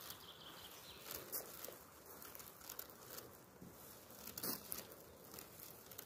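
Faint footsteps crunching and rustling on the forest floor, with two louder crunches about a second and a half in and again about four and a half seconds in.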